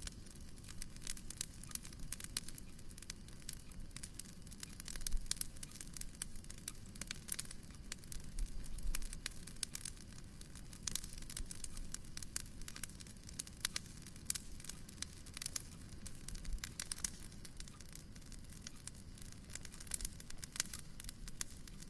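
Wood fire crackling in a fireplace: dense, irregular crackles and pops over a low steady rumble, with a few louder pops around five and nine seconds in.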